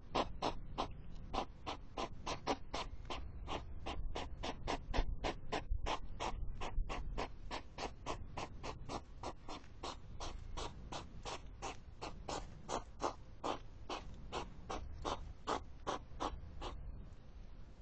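European hedgehogs courting: a steady run of short, sharp huffs, about three a second, the snorting that goes with hedgehog courtship.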